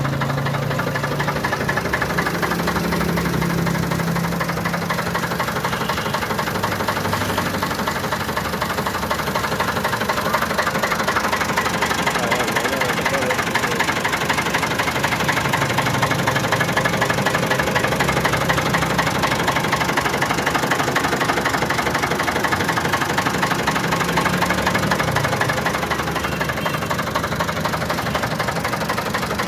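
Ford 4600 tractor's three-cylinder diesel engine idling steadily.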